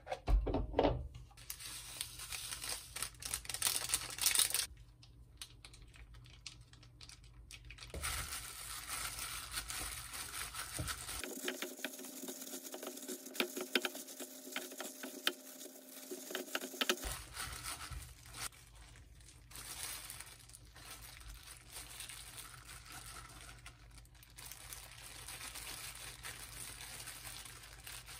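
Thin plastic food-prep gloves crinkling and rustling as hands mix and squeeze cooked rice in a wooden bowl, with a few knocks near the start as a block of cold rice is tipped out of a plastic tub into the bowl.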